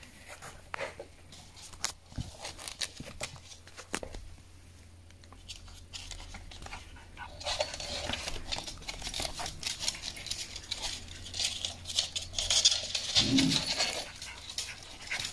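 A pet rabbit and a dog moving and scuffling close to the phone: rustling, light pattering and scattered knocks, which grow busier and louder in the second half.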